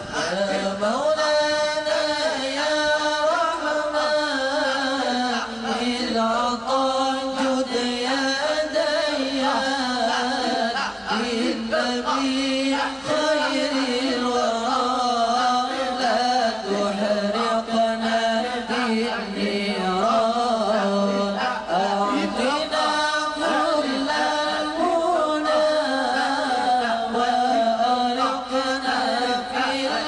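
Arabic devotional chanting: one sung, ornamented vocal line that runs on without a break, used as background music.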